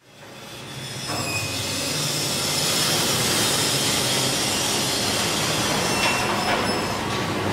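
Stainless-steel meat-processing machinery running as crumbled frozen meat pours down its chute: a steady, hissing mechanical rush with faint high whines. It fades in over the first second.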